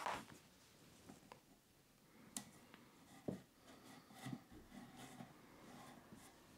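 Faint handling sounds of a self-adhesive furniture pad being peeled from its backing and pressed onto the end of a wooden chair leg: a short scrape at the start, a few light clicks, and soft rustling.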